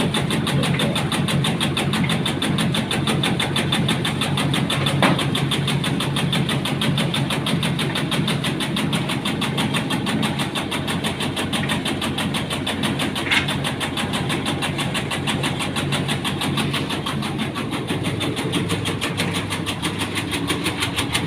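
Motor-driven tobacco-cutting machine running steadily as it draws in and shreds tobacco leaves, with two brief sharp clicks, one about five seconds in and one about thirteen seconds in.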